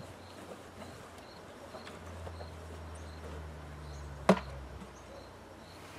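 A single sharp knock about four seconds in as hive equipment is handled, over quiet outdoor background with a faint steady low hum.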